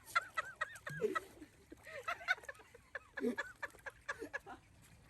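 Short animal calls, repeated several times with pauses between them, each rising and falling in pitch.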